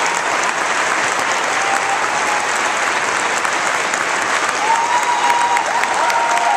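Concert audience applauding steadily, with a few long calls held above the clapping near the end.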